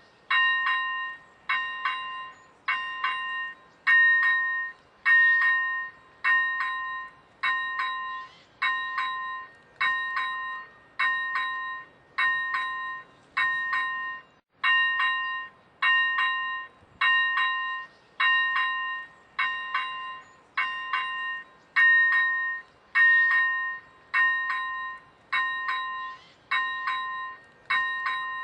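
Czech level crossing warning bell ringing steadily: single bright dings of several stacked tones, each struck sharply and dying away, repeating about once a second.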